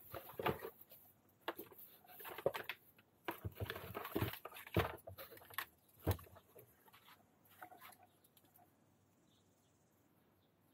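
Thin plastic bags rustling and crinkling in irregular bursts as they are pulled from a cardboard box and opened out by hand, with one sharper crackle about six seconds in; the handling dies away near the end.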